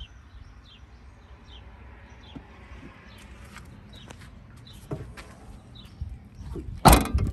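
Small birds chirping in short repeated falling notes, with faint clicks and handling rustles, then a car door shut with one solid thump near the end.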